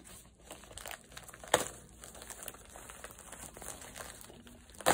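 Packaging crinkling and rustling as a mail package is handled and opened, with a sharper crackle about one and a half seconds in and another near the end.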